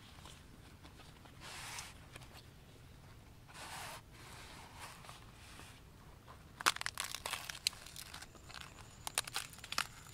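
Fresh banana leaf handled and folded by hand into a packet: a few soft swishes of the leaf, then a run of sharp crinkling and crackling in the second half as it is creased and pressed.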